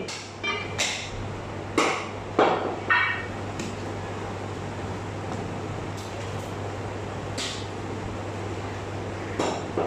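Meat cleaver chopping mutton on a wooden butcher's block: a quick run of sharp chops in the first four seconds, some with a short metallic ring from the blade, then a few scattered knocks. A steady low hum runs underneath.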